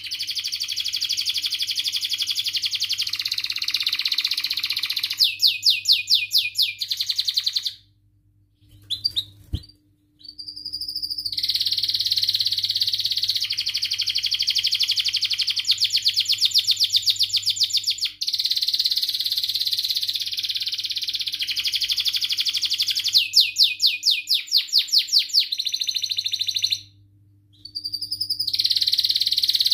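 Domestic canary singing long, continuous song phrases of fast rolling trills. It breaks off twice for a second or two before starting up again.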